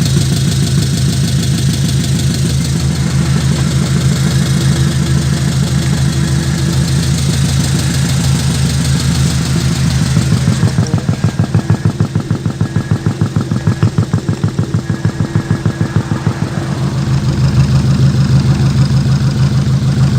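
An engine idling steadily. For several seconds in the middle its running turns into an even throb, pulsing about four times a second, before it settles back to a smooth idle.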